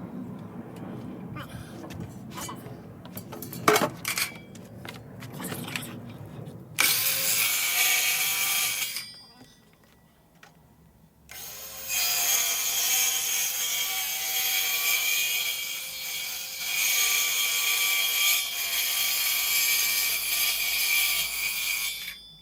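Power tool cutting into wood, run in a short burst of about two seconds and then, after a brief pause, for about ten seconds, with knocks and clicks of handling before it. The cuts are taking out a recess in the wooden bench top so a metal edge can sit flush.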